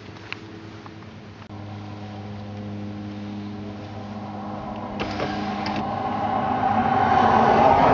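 Car engine running with a steady low hum, heard from inside the cabin. A rising rush of vehicle noise builds steadily and is loudest near the end.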